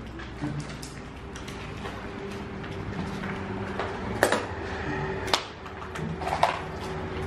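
Footsteps on a floor strewn with rubble and broken tile, with scattered small crunches and three sharper cracks in the second half, over a low steady drone.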